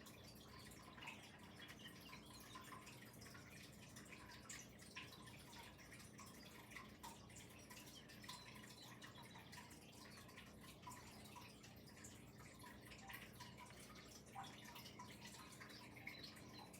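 Faint, irregular light ticks and taps of a pheasant and a pigeon pecking at their food, over a faint steady low hum.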